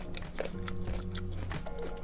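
Background music with steady tones, over crisp chewing of firm Indian mango slices: scattered small crunching clicks.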